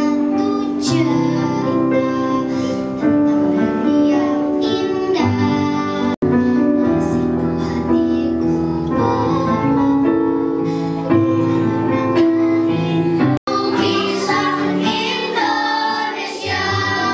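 A group of children singing together into stage microphones, with music accompanying them. The sound drops out for an instant twice.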